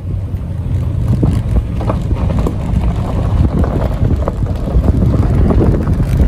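A road vehicle travelling, heard from on board: a steady low rumble with frequent small knocks and rattles, typical of a rough dirt road.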